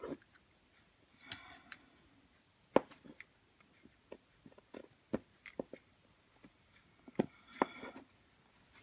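Plastic Play-Doh tools and pieces handled on a table: scattered sharp clicks and taps, with two short squeaky scrapes, one about a second in and one near the end.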